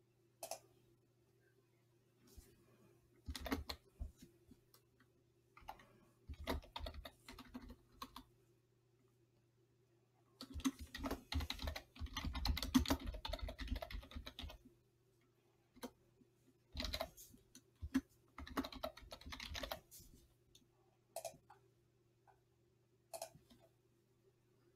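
Typing on a computer keyboard in several bursts of key clicks with pauses between, the longest and densest run about ten seconds in.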